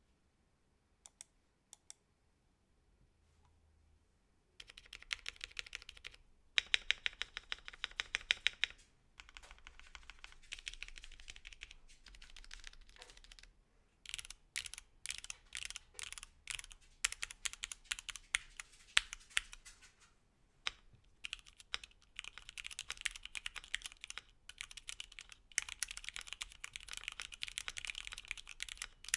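Mechanical keyboard typing on stock retooled Cherry MX Black linear switches, a Voice65 keyboard with PBT keycaps. A few single keystrokes first, then fast typing in runs from about five seconds in, broken by short pauses.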